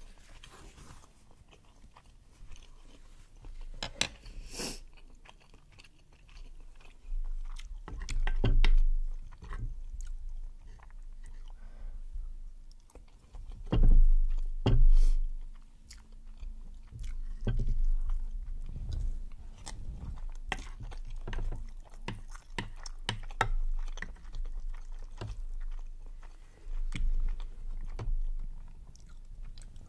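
Close-miked eating sounds: wet chewing and smacking of spicy rice cakes and rice, with irregular clicks throughout and a few louder thumps. A wooden spoon scoops through the food in the ceramic dish.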